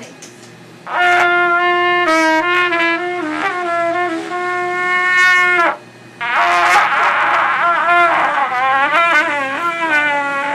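Trumpet blown by a beginner: one long held note starting about a second in and cutting off near six seconds, then a second, rougher note that wavers in pitch with a lot of breath in it.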